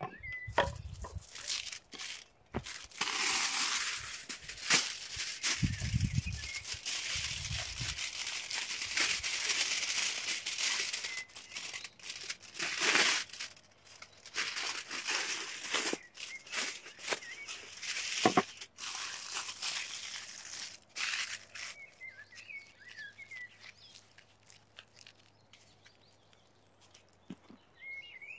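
Aluminium foil being pulled off the roll, cut and crinkled as it is folded around food, heard as crackling rustles that are loudest in the first half and turn sparser after. A bird chirps faintly a few times in the second half.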